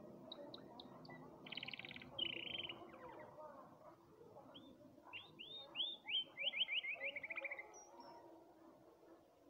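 Domestic canary singing: a few short high chirps, then fast buzzy trills, then a run of down-slurred notes that come quicker and drop in pitch, ending about eight seconds in.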